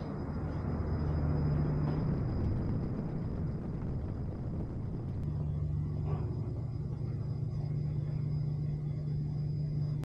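A steady low mechanical hum with a thin high-pitched whine over it; the deepest part of the hum drops out for a few seconds in the middle and then returns, and there is a faint tick about six seconds in.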